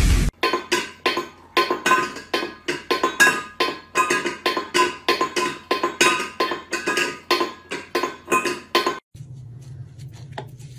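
A cat batting a small metal bowl on a tiled floor: quick repeated clinks with a ringing metallic note, about four a second. About nine seconds in they stop, leaving only a faint low hum.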